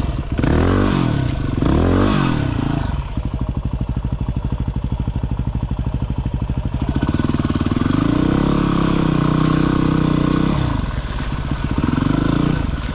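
Single-cylinder dirt bike engine working over rough, trackless ground. It revs up and down twice quickly, chugs at low revs for a few seconds, then holds higher revs for about three seconds before dropping back. There is one more short rev near the end.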